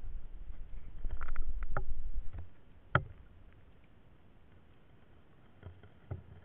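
Muffled underwater sound through a submerged camera in a shallow ditch: a low rumble of moving water for about two seconds, then a single sharp knock about three seconds in, then faint hiss with a couple of small knocks near the end.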